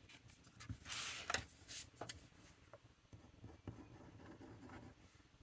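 A paper card rustles as it is picked up and set down about a second in. Then a fountain pen nib, dipped only in water, scratches in short faint strokes across the card as its feel is tested before inking.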